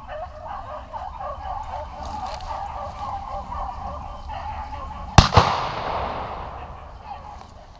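Beagles baying steadily on a rabbit chase, a chorus of short repeated yelps. About five seconds in, a single very loud shotgun blast, its echo trailing off over the next two seconds.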